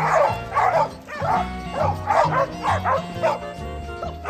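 A dog barking repeatedly, a bark roughly every half second, over background music with held bass notes.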